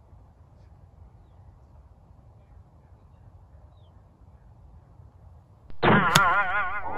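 The sharp click of a golf iron striking the ball, about six seconds in. It comes inside a loud, wavering, pitched cry that starts just before the strike and is the loudest sound. Before that there is only faint outdoor background noise.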